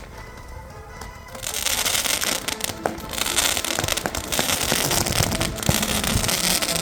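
Weco Superfly firework going off: a dense crackling with scattered sharp bangs starts about a second and a half in and keeps going.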